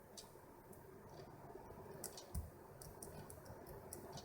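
A handful of faint, irregular clicks from a shallow hook pick probing the pins of a pin-tumbler lock under tension, feeling for the binding pins.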